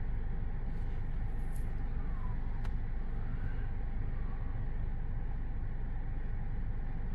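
Steady low rumbling hum inside a parked car's cabin, with a single faint click about two and a half seconds in.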